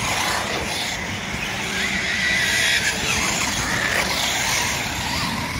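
Radio-controlled racing truggies running on a dirt track, their motors whining and rising and falling in pitch as they accelerate and brake.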